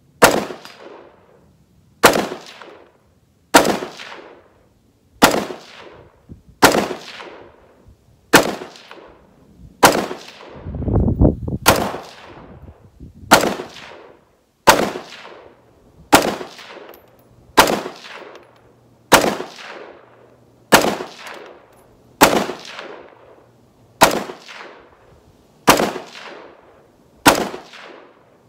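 Single 5.56 rifle shots from a short-barreled AR-15 with a 10.5-inch barrel, about eighteen of them, one every one and a half to two seconds, each sharp crack trailing off in an echo. A low rumble comes in briefly about ten seconds in.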